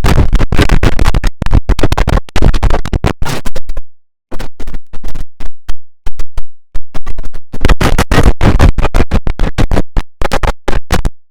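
Digitally chopped audio, cut into rapid stuttering repeats that sound like record scratching. It is broken by two short silent gaps, about four and six seconds in.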